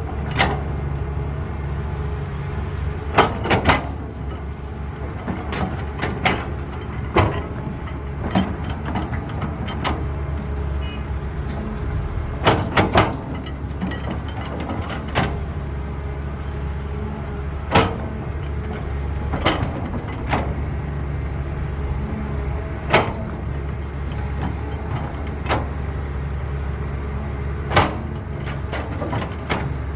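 Diesel engine of a Caterpillar excavator running steadily under load, with sharp knocks from the machine's work every few seconds.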